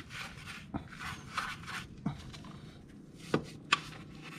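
Brush scrubbing a scooter's CVT cover with soap and water, in repeated short rough strokes, with a few sharp clicks along the way.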